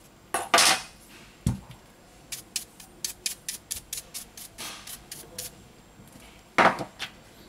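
Compressed-air blow gun blasting dust off a phone's display frame. Two loud, longer hissing blasts come about half a second in and near the end, with a quick run of short puffs between them. A single low knock comes about one and a half seconds in.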